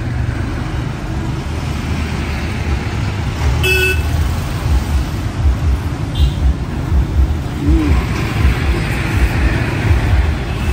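Road traffic going past in a steady low rumble, with a short vehicle horn toot a little under four seconds in.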